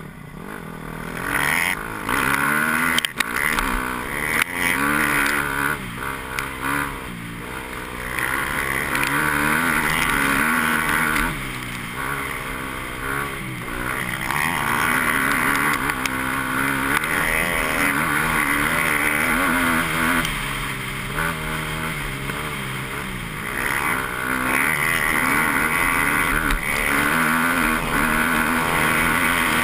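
KTM dirt bike engine heard up close from a camera mounted on the bike, revving up and falling back again and again as it is ridden through the gears. A sharp knock sounds about three seconds in.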